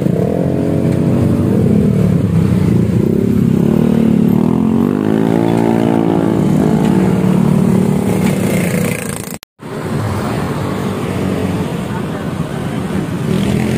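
Honda Scoopy scooter's single-cylinder four-stroke engine running through an aftermarket racing exhaust, with a gentle rev that rises and falls in pitch midway. After a sudden cut there is rougher motorcycle and street traffic noise.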